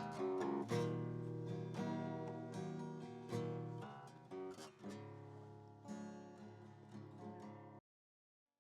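Background music: an acoustic guitar strummed and picked, the instrumental tail of a song, fading down and cutting off to silence just before the end.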